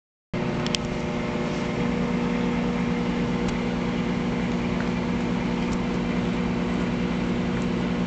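Microwave oven running with a lit candle inside: a steady, even hum with a couple of faint ticks.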